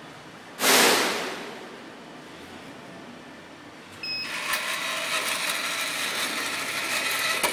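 Envelope dispensing machine running its motor-driven feed rollers for about three and a half seconds, a steady mechanical whirr with a few held tones, then stopping sharply as the envelope is pushed out of the slot. About half a second in there is a single sudden loud burst of noise that fades over about a second.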